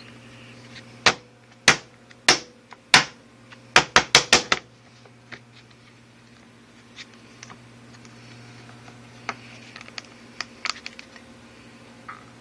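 Sharp clicks from a Casio MA-10 alarm clock being tapped and handled: four clicks about half a second apart, then a quick run of five, then scattered fainter clicks near the end. A faint steady hum lies underneath.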